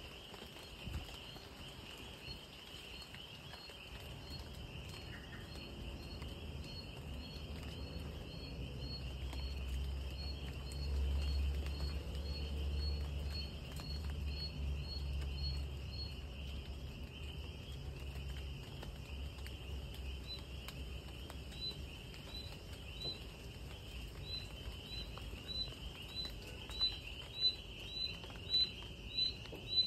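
Night-time outdoor ambience: a steady high drone of insects, with a short chirp repeated about twice a second that stops for a few seconds midway and comes back louder toward the end, over a faint patter of rain and a low rumble in the middle.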